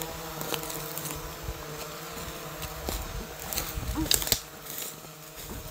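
A steady buzzing hum made of several even tones, with a few short crackles about four seconds in.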